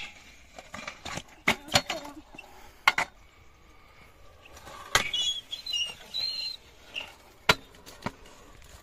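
Stunt scooter being ridden through a trick on a skatepark box: a series of sharp clacks and slaps as the wheels and deck hit the ledge and the ground, the loudest right at the start, with a scraping, squealing grind along the ledge a little past halfway.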